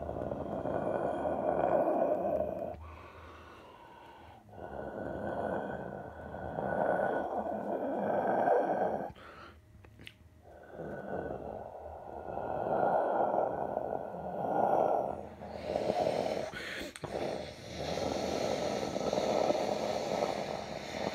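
Airbus A330 jet engines at takeoff thrust as the airliner rolls down the runway and lifts off. A dull rumble, muffled through window glass, swells and dips.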